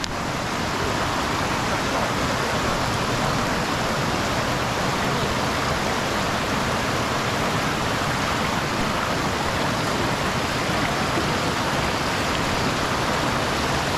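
Steady rushing water noise, even and unbroken.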